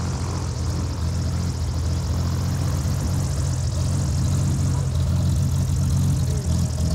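Single-engine aerobatic propeller plane running on the ground, giving a steady low engine drone with a hiss from the spinning propeller.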